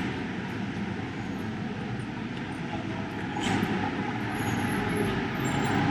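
Busy city street traffic: a steady rumble of passing vehicles that grows louder about halfway through.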